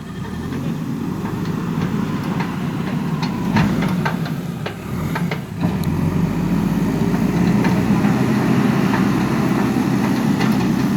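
JCB backhoe loader's diesel engine running steadily, getting louder about six seconds in, with a few short knocks along the way.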